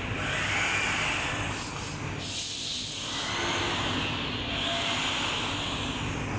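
Steady mechanical running noise and hiss of factory machinery around a paper slitting and rewinding machine, with a hissing sound that swells and fades about every two seconds and a brief sharper hiss about one and a half seconds in.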